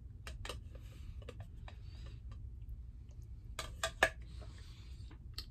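A spoon scooping yogurt parfait from a clear plastic cup and clicking against it: a few sharp clicks in the first second, then a quick cluster of louder clicks about four seconds in, between quiet eating sounds.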